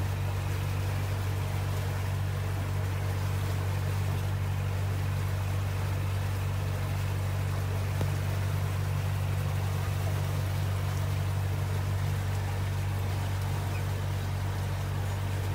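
Boat engine running steadily at cruise, a constant low drone, with the hiss of water moving past the hull.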